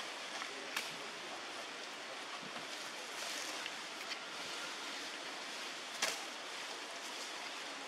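Steady outdoor background hiss with no clear single source, broken by two short clicks: one about a second in and a louder one about six seconds in.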